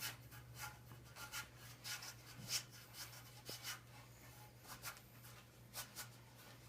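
A hand rubbing and smoothing hockey tape wrapped on the knob of a hockey stick: faint, irregular brushing strokes.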